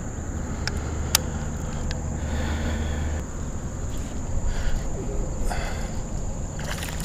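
Outdoor ambience at a pond's edge: a steady high-pitched whine throughout, a low rumble for the first three seconds, and two sharp clicks about a second in.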